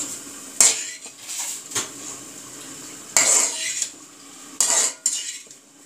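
A metal spoon scraping and clattering against a large metal pan while stir-frying shredded cabbage and vegetables. The scraping strokes are irregular, the longest and loudest about three seconds in.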